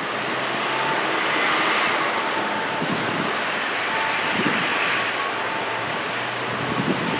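Steady outdoor city background of distant road traffic and wind on the microphone, with faint short tones now and then and a single click about three seconds in.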